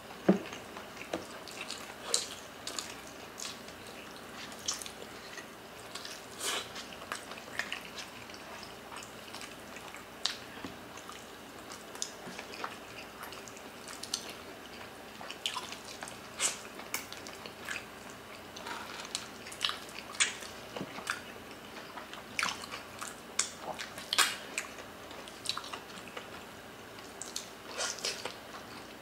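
Close-up eating sounds of oxtail kare-kare and rice eaten by hand: wet chewing and lip smacks, heard as a string of short, sharp, irregular clicks.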